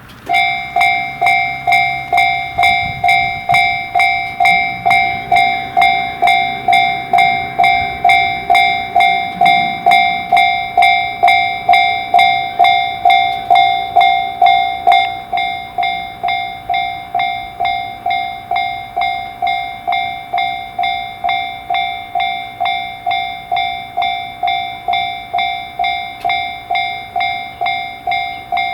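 Japanese railroad crossing warning bell ringing its 'kan-kan' alarm, signalling an approaching train. It starts suddenly right at the start and rings evenly at about two strikes a second, a little quieter in the second half.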